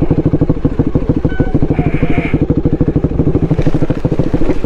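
Dual-sport motorcycle engine running steadily at low revs, with an even beat of about a dozen pulses a second.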